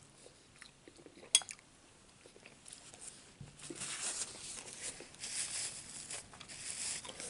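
A single sharp clink of a spoon against a bowl about a second in, then soft chewing and rustling, with the rustle of a paper napkin wiping the mouth near the end.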